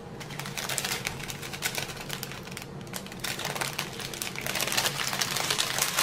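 Small zip-lock plastic bags of round diamond-painting drills handled between the fingers: a dense, irregular patter of tiny clicks as the beads shift inside, with soft crinkling of the plastic.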